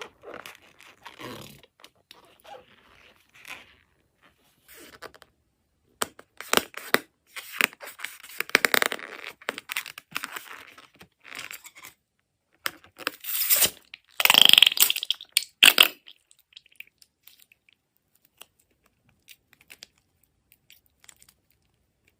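Handling noises from a balloon and slime being worked by hand: irregular bursts of rustling with many small clicks, loudest about two-thirds of the way in, then near quiet for the last few seconds.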